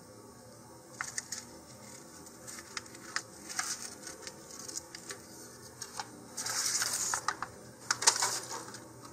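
Scissors snipping through a paper sheet in a run of short, irregular snips, with about a second of paper rustling a little past the middle and a louder cluster of snips near the end.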